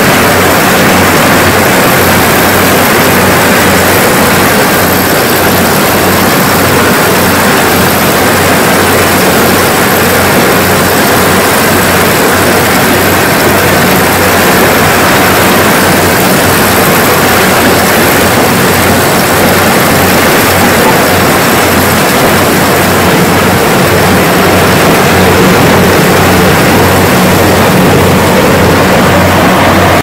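Kubota combine harvester with a corn header running steadily as it harvests dry corn stalks: a loud, even machine drone with a low engine hum.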